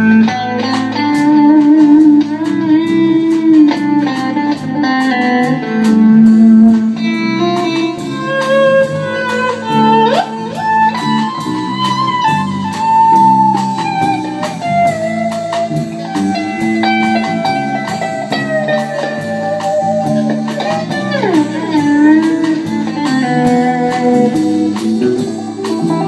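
Folk band playing an instrumental break between verses. An electric guitar carries the melody with a couple of sliding notes, over acoustic guitar, bass and drums.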